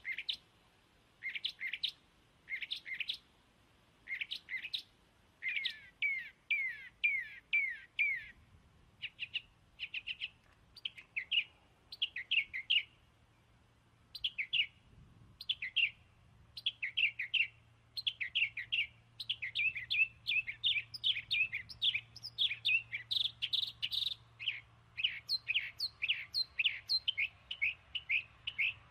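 A small bird chirping in quick runs of short, falling chirps, with brief pauses between the runs. A faint steady low hum comes in about a third of the way through.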